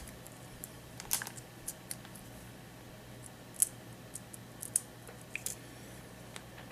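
Scattered small clicks and taps of tools and small parts being handled on a workbench, one sharper tick about three and a half seconds in, over a faint steady hum.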